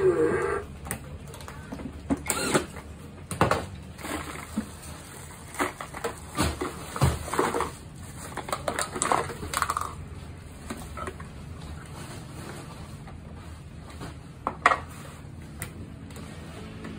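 Irregular clicks and knocks of hard plastic parts being handled, pressed together and set down on a tiled floor during assembly of a children's ride-on scooter. A sharp knock about fifteen seconds in is the loudest.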